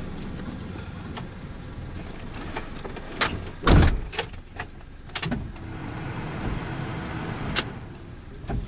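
Clicks and knocks from inside a Land Rover's cabin over a low steady rumble. The loudest is a heavy thump a little under four seconds in.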